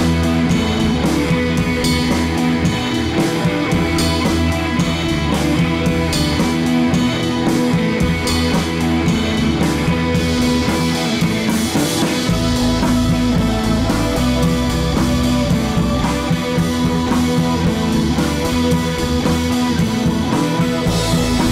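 Background rock music with guitar and drums and a steady beat; the bass grows heavier about twelve seconds in.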